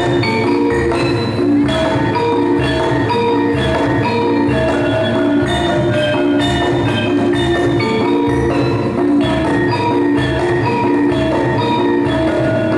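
Gamelan-style music for a Javanese dance: metal-keyed mallet instruments and gong-chimes striking a dense, even run of pitched notes over low beats.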